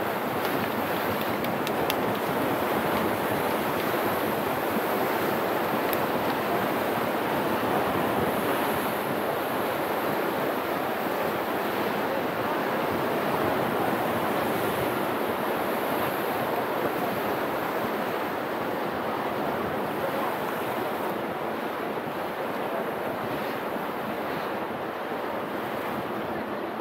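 Sea surf washing against a breakwater of concrete blocks, a steady rush of water.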